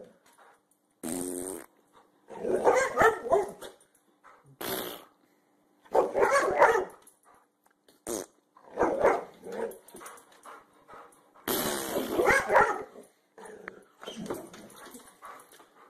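Boxer dog barking and growling in about seven bursts, each around a second long, with short gaps between them.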